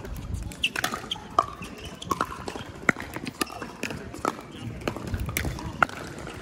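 Pickleball paddles striking a hard plastic ball: a run of sharp, hollow pops at irregular spacing, with two louder hits about three and six seconds in.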